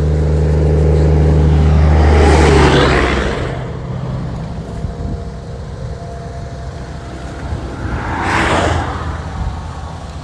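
Highway traffic passing close by. A vehicle with a deep engine drone builds up and rushes past about two to three seconds in, and another vehicle whooshes past near the end.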